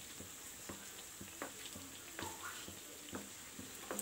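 A pastry-wrapped potato patty deep-frying in hot oil, with a steady faint sizzle and irregular sharp crackles. A wooden slotted spoon stirs and splashes the hot oil over its top.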